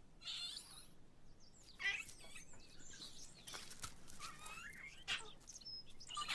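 Yunnan snub-nosed monkeys giving several short, high-pitched squeaky calls that glide up and down in pitch, one after another.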